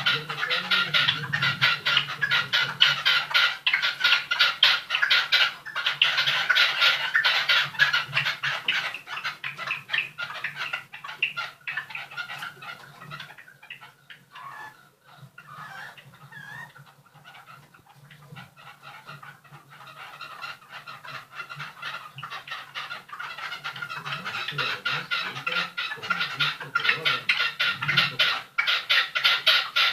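Several caged birds calling continuously in fast, rapid chirps, dropping away for a few seconds midway and building back up near the end.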